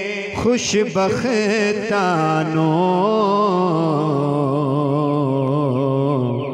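A man singing a Punjabi naat unaccompanied into a microphone: quick ornamented runs for the first two seconds, then one long held note with a slow waver that sinks a little towards the end.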